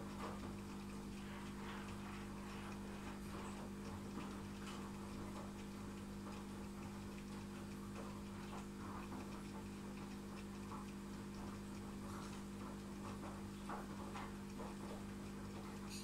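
Aquarium pump humming steadily, with faint, irregular ticks and drips of water.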